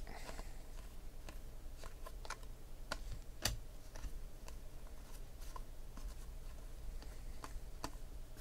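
2016 Panini Contenders football trading cards being flipped through by hand, card after card sliding off the stack with soft, irregular clicks and rustles, the sharpest about three and a half seconds in. A faint steady low hum runs underneath.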